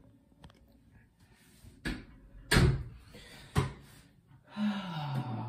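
Three knocks, the middle one loudest, as a phone is handled and set down. Near the end comes a short low vocal sound falling in pitch, like a groan.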